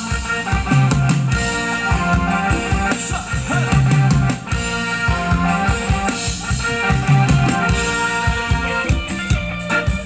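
Live band playing an instrumental stretch of Thai ramwong dance music, a drum kit keeping a steady beat under sustained melody instruments.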